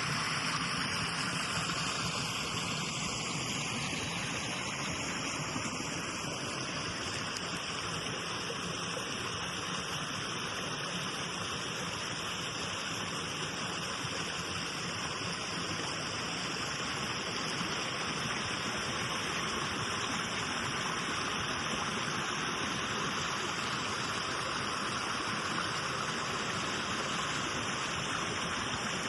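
Stream water flowing in a steady, even rush.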